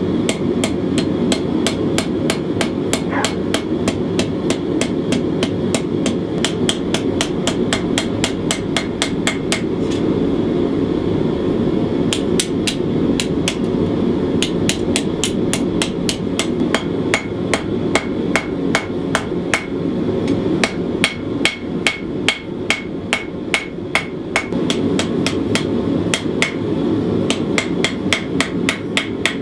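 Hand hammer striking hot steel on an anvil, drawing out the tang of a 1095 steel knife blade. The blows come in a fast, even rhythm of about three a second, each with a bright ring, with a couple of short pauses. A steady low rushing noise runs underneath.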